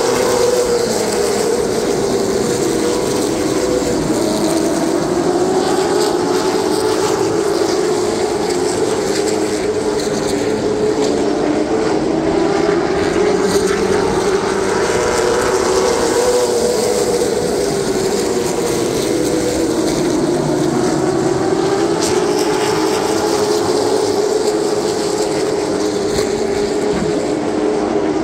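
Late model stock car's V8 engine running at race speed. Its pitch swells and sags in a smooth cycle about every eight seconds as the car accelerates and lifts around the short oval.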